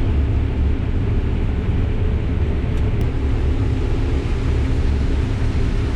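Case IH combine harvester running steadily through corn, a loud even low rumble.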